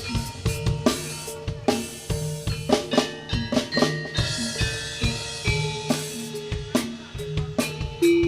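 Live jaranan ensemble music: quick, dense drumming over held, ringing pitched tones from gong-chime instruments.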